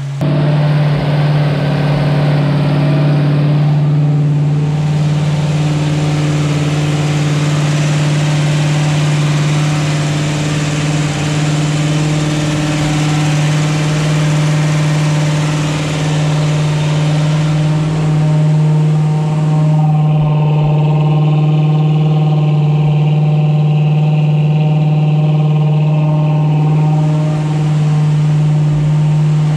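Freshly rebuilt Ford 289 small-block V8 running steadily at a raised, held speed on its first run, the fast run used to break in a new flat-tappet camshaft.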